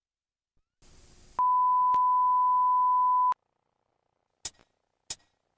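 A single steady, pure electronic beep like a test tone, held for about two seconds after a brief faint hiss, followed by two short clicks near the end.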